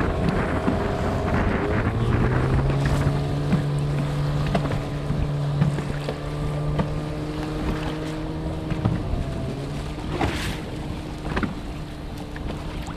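Outboard motor of a small motorboat running under way, its note stepping up about two seconds in and easing off near nine seconds, with wind buffeting the microphone.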